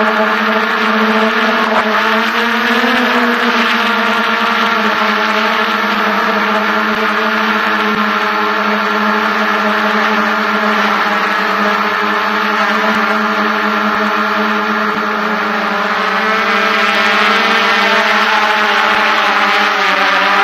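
A DJI F550 hexacopter's six electric motors and propellers in flight, giving a loud, steady buzzing hum with small wavers in pitch. It grows a little louder and hissier over the last few seconds as the craft comes down close to the ground.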